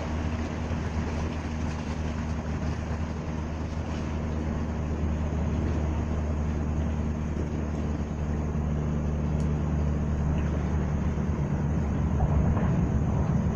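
Steady low diesel engine drone of a tugboat towing a large river barge (tongkang) past, swelling slightly near the end.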